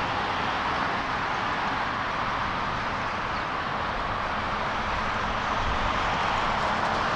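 Boeing 777-200ER's GE90 turbofan engines running at taxi idle: a steady jet rush that grows a little louder near the end as the engine draws closer.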